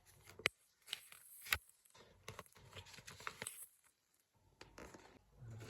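Light handling of a paper instruction manual and its packaging: scattered soft rustles and small taps, with two sharper clicks in the first second and a half.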